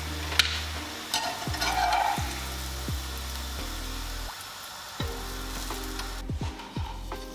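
Hot fat sizzling in a cast-iron pan as flaky flatbread fries, with a sharp click about half a second in. The sizzle drops away a little after six seconds.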